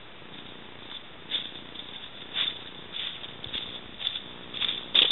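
Footsteps of a backpacker crunching through dry fallen leaves, about two steps a second, growing louder as the walker comes up close.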